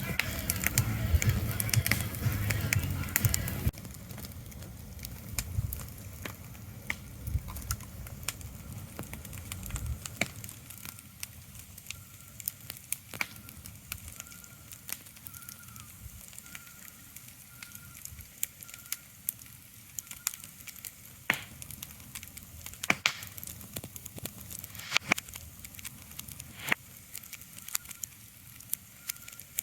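Ambient soundscape. For the first few seconds a low rumble dominates. After that come sparse, irregular crackles and clicks over a quiet hiss, with a faint high chirp repeating steadily.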